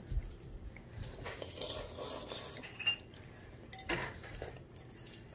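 A child slurping thick udon noodles, with light clicks of chopsticks and tableware, the sharpest about four seconds in.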